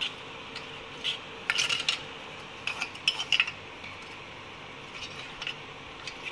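Spoon stirring milk and cornflour in a stainless-steel bowl, knocking and scraping against the metal in irregular bursts of clinks, busiest in the middle.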